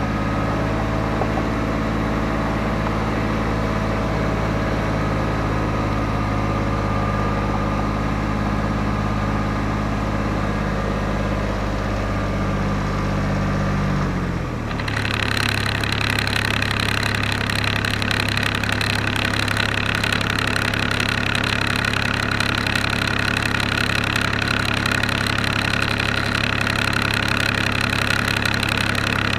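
An engine running steadily at idle. About halfway through, its low note dips briefly, then the sound switches to a steadier running with a high-pitched whine on top.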